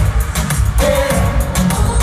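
Loud live music through an arena sound system, with a steady pounding bass beat.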